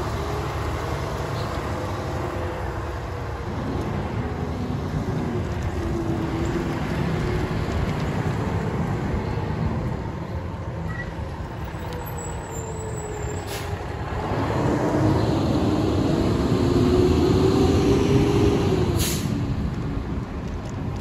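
Mack Granite rear-loader garbage truck's diesel engine running, its pitch rising and falling as it revs, louder in the second half. Two short hisses of air from the truck's air brakes, about two-thirds through and near the end.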